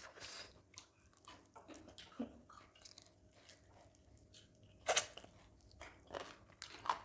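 Close-up chewing and biting as people eat with their fingers and gnaw chicken off the bone, with small wet mouth sounds and a sharper crunch about five seconds in.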